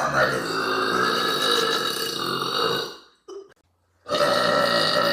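A girl's long, loud burp lasting about three seconds, followed after a short gap by a second long burp that starts about four seconds in.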